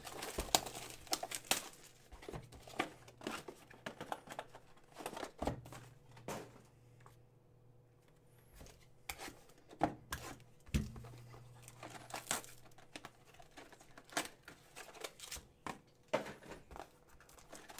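A trading-card box and its wrapped packs being opened and handled by hand: scattered crinkling of wrapper and tearing, with taps of cardboard, and a short pause about seven seconds in.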